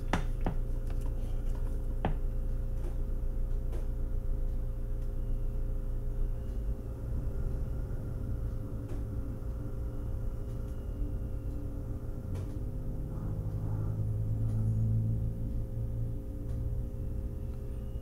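A steady low background hum, with a few faint clicks near the start. The hum swells for a few seconds about three quarters of the way through.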